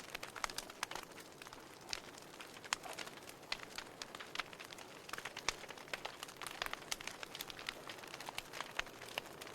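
Wood logs burning in a fireplace, crackling and popping with irregular sharp snaps over a soft hiss of the flames.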